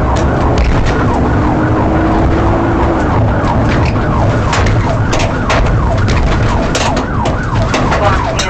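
Police car siren in fast, repeating pitch sweeps, over a loud rumble of engine and road noise, with scattered sharp clicks or knocks in the second half.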